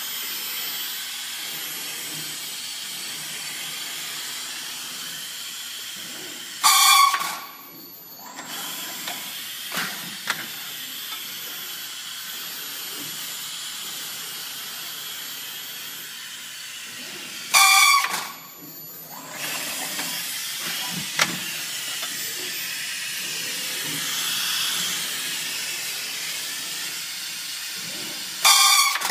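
Pneumatic part loader of a Titan CNC roll-bending machine: a steady hiss of compressed air, broken three times, about eleven seconds apart, by a short loud pulsing blast of air as the loader cycles. Each blast is followed by a brief quieter moment. A few faint clicks of the mechanism come in between.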